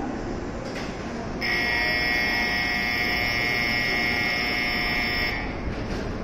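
Shinkansen platform departure bell, an electric buzzer-type bell, rings steadily for about four seconds, starting about a second and a half in. It signals that the train is about to leave.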